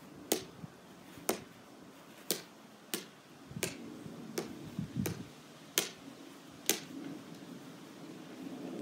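A plastic wiffle ball being tapped straight up off a paddle again and again, a sharp tap about once a second, nine taps, stopping about two-thirds of the way in.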